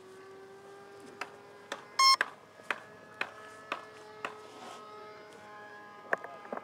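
A short, high-pitched electronic beep about two seconds in, the loudest sound here, over light knocks about twice a second from a small radio-controlled foam plane being handled and carried with its camera aboard, and a faint steady whine.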